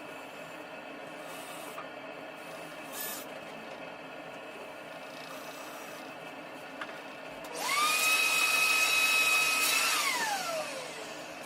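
A small electric power tool's motor spins up about seven seconds in, runs at a steady high whine for about two seconds, then is released and winds down with falling pitch. Before that there is only a steady low background hiss with a few faint ticks.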